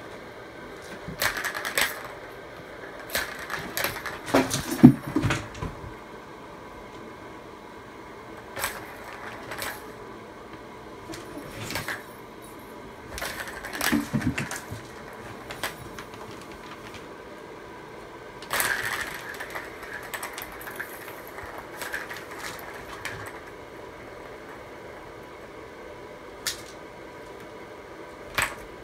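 A kitten batting at a plastic ball-track tower toy, the balls rattling and rolling around the tiers in irregular spells of clicks and clatter, the loudest about five seconds in.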